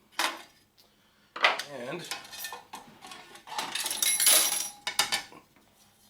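Metal parts of a label printer clattering and clinking as it is taken apart, with a short knock near the start and a longer run of clanking and ringing metal in the second half.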